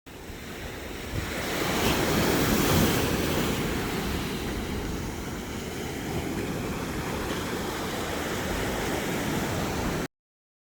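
Ocean surf breaking and washing in, with wind buffeting the microphone. The noise swells to its loudest about two to three seconds in, holds steady, then cuts off suddenly near the end.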